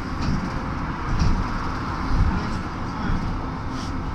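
Cabin noise inside a BKM 32100D trolleybus on the move: a steady road and tyre rumble with a couple of low thumps about one and two seconds in.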